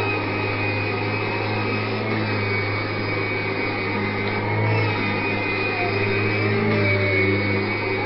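Hoover vacuum cleaner motor running steadily, a constant low hum with a high whine over it.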